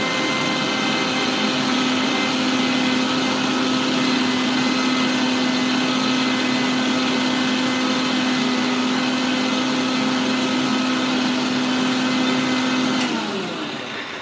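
Electric mixer grinder running steadily with a strong hum as its small stainless steel jar grinds fresh coconut with a little water. It is switched off near the end, and the motor winds down with a falling hum.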